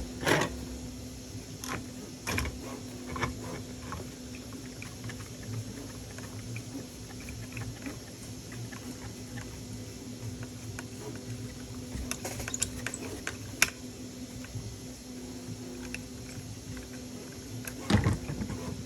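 Scattered small clicks and taps from handling a tool and small parts while an M4 bolt is screwed into the pivot of a 3D-printed model's arm, with a few sharper clicks about 2 s, 12–14 s and 18 s in. A steady low hum runs underneath.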